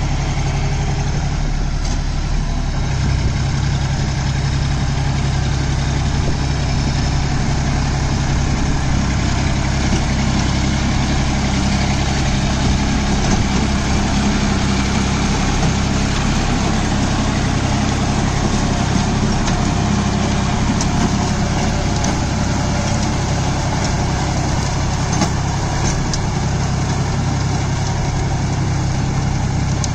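John Deere 5045D tractor's three-cylinder diesel engine running steadily under load as it drives a rotary tiller through flooded paddy mud.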